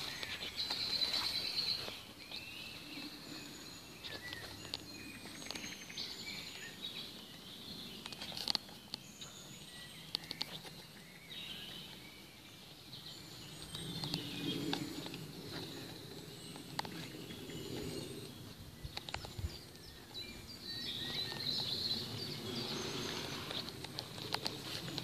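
Garden birds singing and chirping, many short high calls and trills scattered throughout, over a steady outdoor background with a few sharp knocks and some low rumbling.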